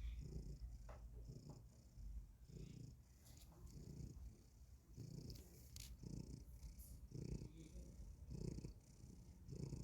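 A sleeping cat snoring faintly, a short snore with each breath, roughly one a second.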